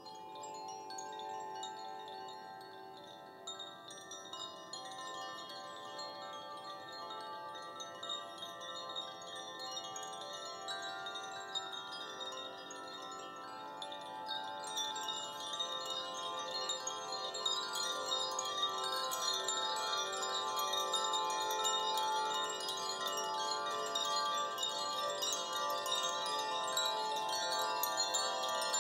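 Several hand-held Koshi chimes, bamboo-bodied wind chimes, swung so that their tuned inner rods ring in many overlapping sustained tones. The ringing grows louder and busier about halfway through.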